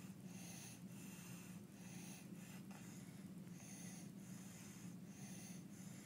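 A baby with croup breathing noisily, each breath a harsh, wheezy rasp (stridor), about four breaths in a few seconds, faint and over a steady low hum.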